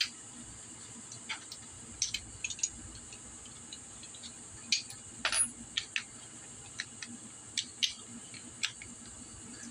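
Scattered light metallic clicks and clinks of small hardware and hand tools being handled while reassembling a scooter engine's cylinder head, about a dozen, irregular, one ringing slightly longer about five seconds in, over a steady high hiss.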